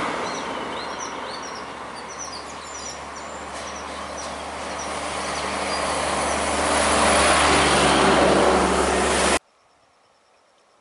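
Heavy trucks driving past one after another, close by: engine and tyre noise that drops off after the first goes by, with birds chirping faintly, then swells as the next truck approaches and passes. The sound cuts off suddenly near the end, leaving near silence.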